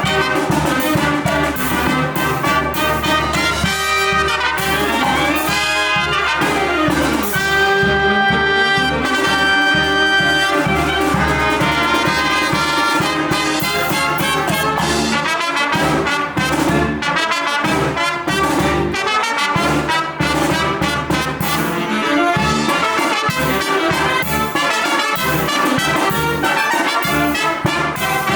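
Live brass band music, trumpets and trombones to the fore. A rising run about four seconds in leads to a held chord, then the band moves into a brisker passage with a steady beat.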